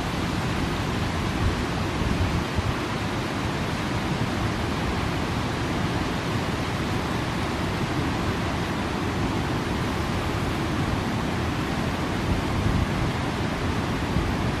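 Steady rushing noise of a fast-flowing river, with low, uneven rumbling from wind on the microphone; no distinct events stand out.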